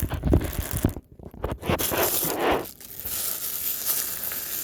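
A small mail package being torn open and handled: tearing and crinkling of the packaging, with clicks and scrapes in the first second.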